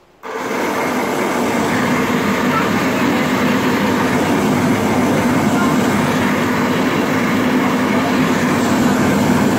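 Wall-mounted hand dryer switching on abruptly as a hand is held under its domed nozzle, then running steadily: a loud rush of air over a low motor hum.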